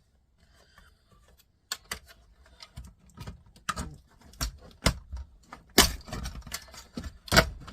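Irregular clicks, rattles and knocks of small plastic and metal electronics parts being handled and worked apart by hand, starting about a second and a half in, with two sharper knocks about six seconds in and near the end.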